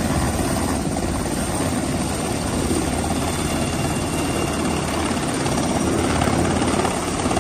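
UH-60 Black Hawk helicopter's rotor beating steadily along with its turbine engines as it climbs away from close over the ship's flight deck and passes overhead to one side.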